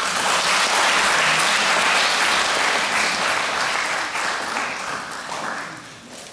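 Audience applauding, with steady clapping that dies away over the last two seconds or so.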